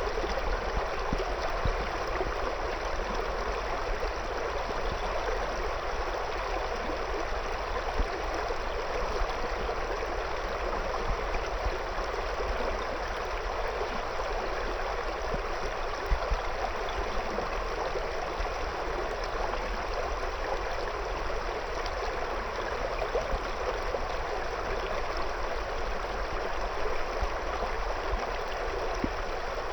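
River water flowing over and around stones, a steady rushing with a little gurgling.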